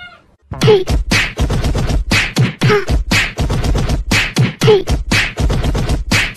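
Background music with a fast beatbox-style beat of closely spaced hits, starting about half a second in after a brief pause.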